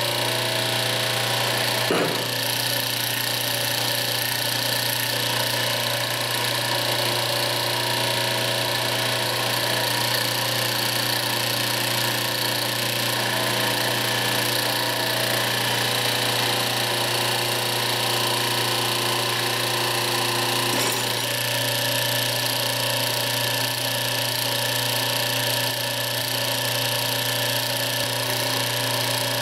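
Steady electric machine hum in a workshop, a strong low drone with several fixed higher tones above it. There is a brief change about two seconds in and again around twenty-one seconds.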